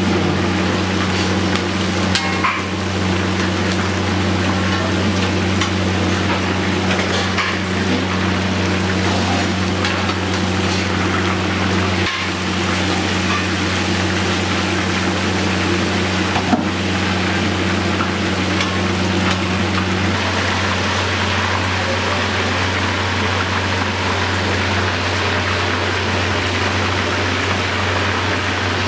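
Chicken pieces deep-frying in hot oil in a kadai, a steady sizzle throughout, with a steady low hum beneath it. A few sharp clicks come from the slotted metal spoon knocking against the pan.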